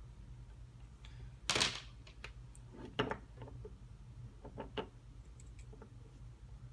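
Small clicks and taps of wires and tools being handled during soldering, with a short hiss about one and a half seconds in and a low steady hum underneath.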